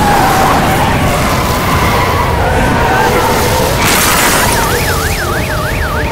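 Tornado storm effects: a loud, dense roar of wind and debris with a low rumble, a sudden crash about four seconds in, then a fast up-and-down siren wail rising and falling about three times a second.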